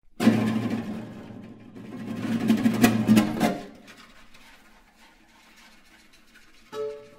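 Guitar quartet playing extended techniques: a loud, noisy, scraping texture with a few sharp clicks for about three and a half seconds, then a faint rubbing as the players rub their fingernails up and down the guitar bodies. A short pitched note sounds near the end.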